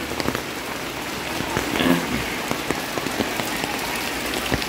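Steady rain falling on wet ground and stall awnings, an even hiss dotted with many small drop ticks.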